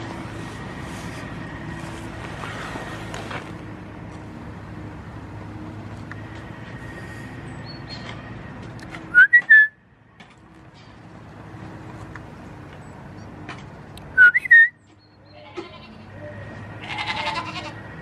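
Goats bleating, with two loud, close calls, one about halfway and one about three-quarters through, and more calls near the end, over a steady low drone.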